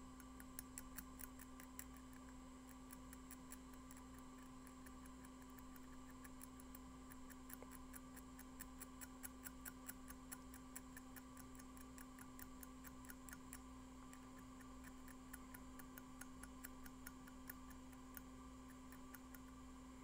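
Faint, quick, irregular ticking and scratching of a small tool cleaning the contacts of a MacBook Air LVDS display connector, over a steady electrical hum.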